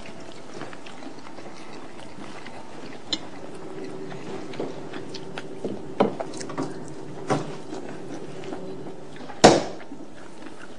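Scattered clinks and taps of cutlery and dishes as people eat, over a steady background hiss, with the sharpest knock near the end.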